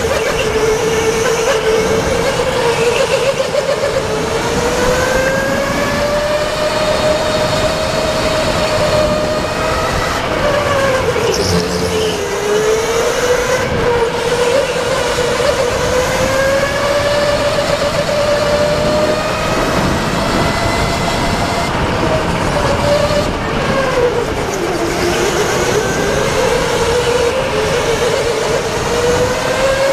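Electric go-kart motor whining under the driver, its pitch rising as the kart gathers speed and dipping twice, about twelve and twenty-five seconds in, as it slows for corners, over a haze of wind and tyre noise.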